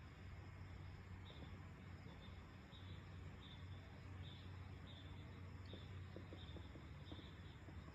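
Faint, regular insect chirping, about one and a half short high chirps a second, over a low steady distant hum. A few faint crackles from the distant fireworks come in the second half.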